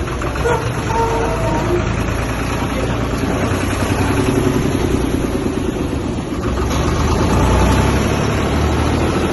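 Diesel engine of a mobile crane running steadily while the crane works, growing louder about two-thirds of the way in.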